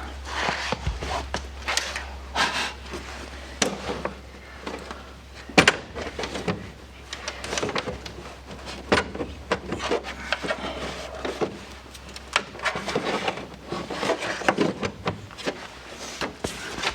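Irregular clicks, knocks and scraping of parts and hardware being handled and fitted, over a steady low hum.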